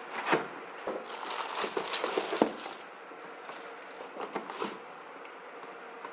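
Packaging being handled: plastic and cardboard crinkling and rustling, with a couple of sharp knocks. It is busiest for the first three seconds and comes back briefly near the end.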